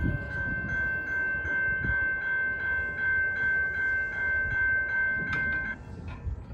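Railroad grade crossing bell ringing at about three strokes a second, stopping near the end as the crossing gates finish rising after the train has cleared. Under it is a low rumble.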